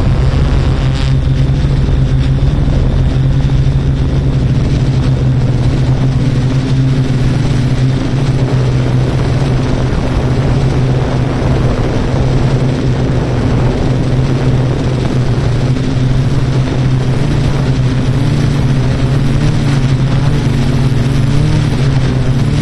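Steady hum of a Yuneec Q500 4K quadcopter's propellers in flight, its pitch wavering slightly as the motors adjust.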